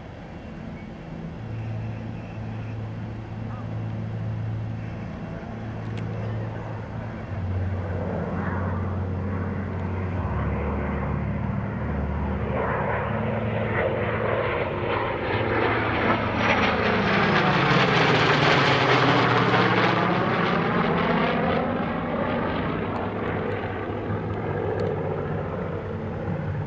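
FG-1D Corsair and F/A-18F Super Hornet flying past together in formation. The jet and the propeller-driven engine noise builds steadily and peaks about two-thirds of the way through, with a sweeping, phasing whoosh as the pair passes closest. It then fades slowly as they fly away.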